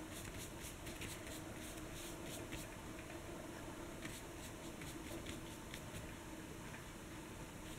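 A flat brush stroking watercolour across paper: faint, quick scratchy brush strokes, close together for the first couple of seconds and sparser after, over a faint room hum.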